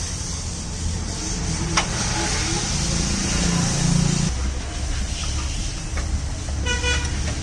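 Motor vehicle engine running with a steady low rumble. There is a sharp click about two seconds in and a brief pitched tone near the end.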